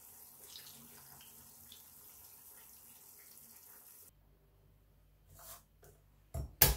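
Faint trickle of mussel cooking water poured from a ladle over shelled mussels in a dish. Near the end, a few sharp knocks of a chef's knife on a wooden cutting board with garlic cloves.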